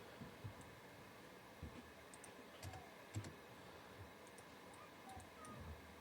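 Faint, scattered clicks of a computer mouse and keyboard.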